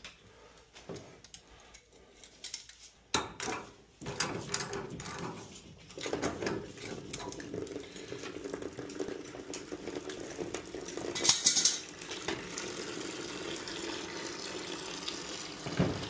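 Brass pipe fittings clinking and being turned by hand at a hot-water boiler's relief-valve tapping. From about four seconds in, water runs steadily, with scattered metallic clicks over it.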